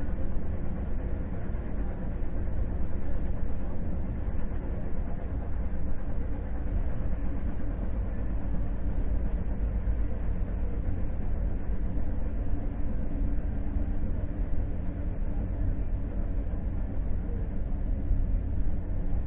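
Steady low rumble of a moving vehicle heard from inside, with no distinct clicks or rhythm.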